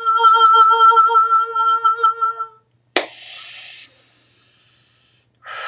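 A woman humming one steady held note with a pulsing wobble, which stops about two and a half seconds in. A sharp click and breathy noise follow.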